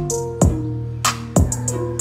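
Music with a drum-machine beat and held bass and keyboard notes, played back through Kenwood LS-SK3 two-way bass-reflex bookshelf speakers, with sharp drum hits about a second apart.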